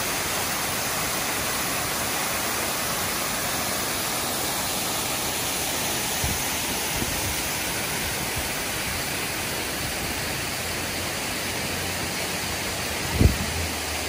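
Waterfall rushing: a steady, even roar of falling water, with a single low thump about thirteen seconds in.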